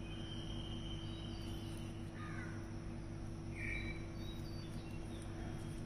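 Background ambience: a steady low hum with birds calling a few times, including a falling call about two seconds in and a short call near four seconds.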